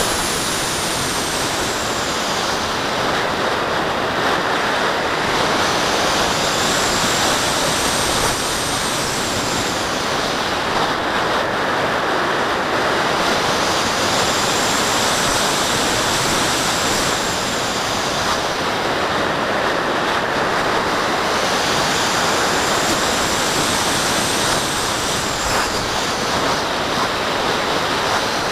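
Wind rushing over the microphone of a camera on a model glider's wing, a steady loud hiss whose upper part swells and fades every eight seconds or so.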